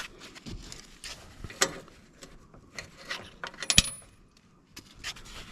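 Small metal parts clicking and clinking as a retaining pin and washer are worked on a riding mower's deck linkage, with scattered light clicks and one sharp, ringing metallic clink past the middle.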